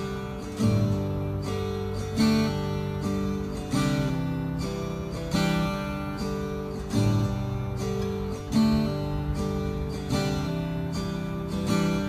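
Background music: an acoustic guitar strumming chords, a new chord about every one and a half seconds.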